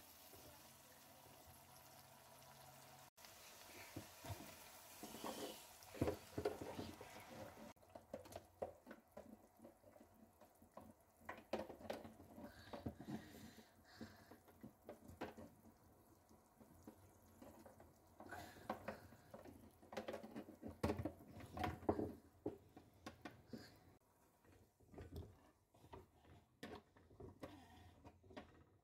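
Plastic spatula stirring and scraping thick curry gravy in a nonstick pot, with wet squelches and irregular soft knocks against the pan as boiled eggs are turned in it. For the first few seconds there is only a faint steady hum.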